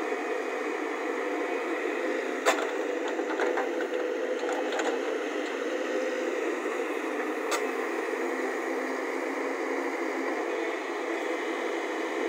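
JCB JS140 tracked excavator's diesel engine running steadily while it digs and swings, with a sharp knock about two and a half seconds in and a lighter one about seven and a half seconds in.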